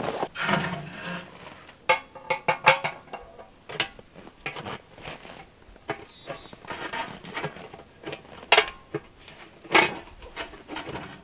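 Cast iron potbelly stove parts and stovepipe clanking and knocking as they are set and fitted together: a quick run of metal clanks with a short ring about two to three seconds in, then scattered single knocks, with loud ones around eight and a half and ten seconds in.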